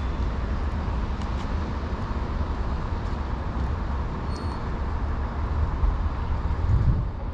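Steady low rumbling outdoor background noise with no distinct events.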